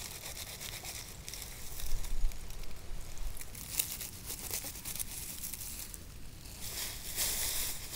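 Crinkling and rustling with many small clicks, louder for a stretch near the end.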